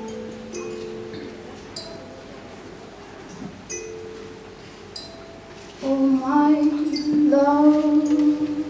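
Soft held musical tones fade away, dotted with light pinging clicks. Then, about six seconds in, a woman's voice comes in over the PA, singing long held notes.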